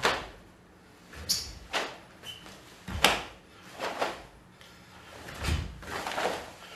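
Karate gi snapping and bare feet stamping and sliding on a wooden floor during a solo kata. A string of sharp swishes and thuds comes about once a second, the loudest about three seconds in.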